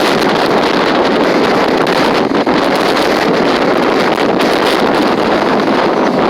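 Strong wind blowing across the microphone: a loud, steady rushing roar.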